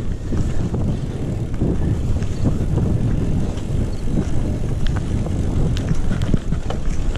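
Mountain bike rolling fast along a dirt trail: a steady low rumble of tyres and wind, with scattered clicks and rattles from the bike.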